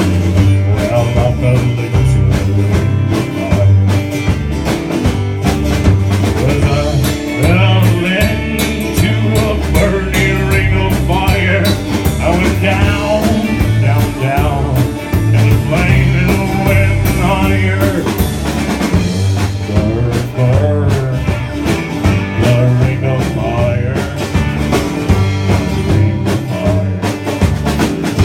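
Live country-rock band playing with drum kit, bass and guitar on a steady beat. A wavering lead melody comes in strongly about a quarter of the way through and carries on to about two-thirds through.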